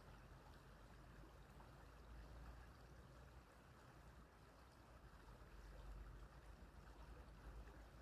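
Faint, steady babble of a small stream running over stones, with a low rumble underneath.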